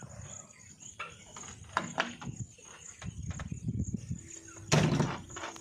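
Insects chirping steadily in the background, with scraping and knocking close by; the loudest is a thump about five seconds in.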